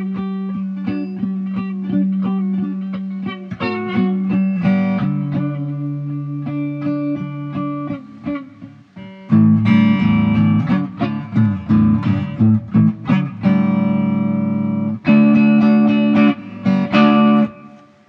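Instrumental music led by an electric guitar, picked notes over steady low notes. It thins out and dips around eight seconds in, comes back louder about a second later, and fades out at the end.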